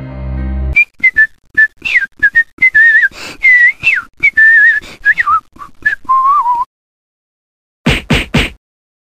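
A person whistling a run of short notes that slide up and down, ending on a lower held note. Music cuts off about a second before the whistling starts, and three short loud bursts come near the end.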